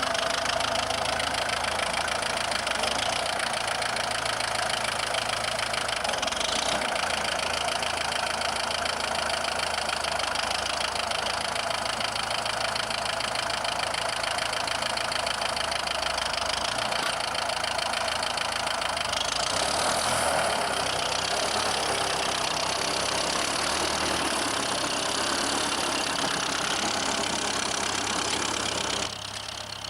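Ferguson TEF tractor's four-cylinder diesel engine running steadily, briefly louder about two-thirds of the way through, then dropping suddenly in level just before the end.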